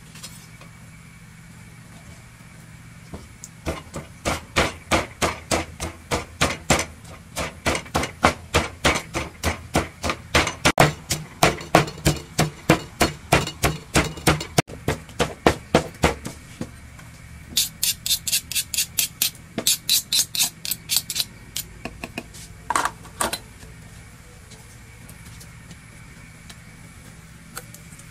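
A wooden pestle pounds chillies and garlic in a clay mortar with steady, even strokes, about three a second. After a short pause comes a quicker run of sharper strokes, then two last knocks.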